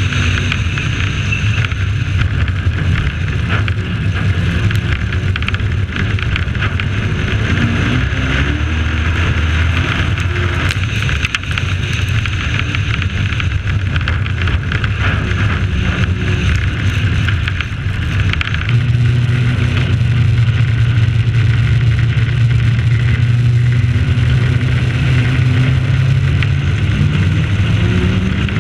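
Dirt-track race truck's engine running hard under racing load, picked up by the onboard camera along with wind and tyre noise. The engine note rises and falls in the first part, then steadies and gets louder about two-thirds of the way through.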